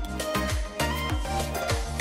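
Upbeat background music with a steady kick-drum beat, just over two beats a second, under sustained melodic notes.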